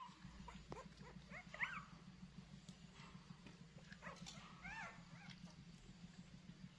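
Faint, high-pitched whimpering squeaks from a young animal: a couple of short calls about a second and a half in, then a small cluster of arched squeaks around the five-second mark, over a low steady hum.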